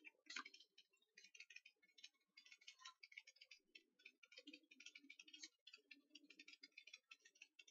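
Near silence with faint, irregular light ticking as tarot cards are handled and sorted.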